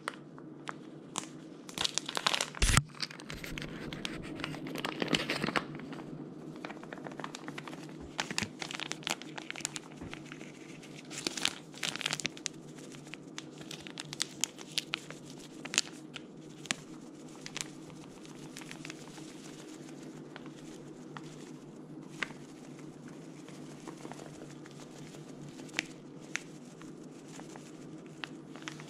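A packet of fish-fry breading mix being crinkled and torn open by hand: scattered crackling and rustling of the packaging, busiest in the first half, with dry coating poured out near the end.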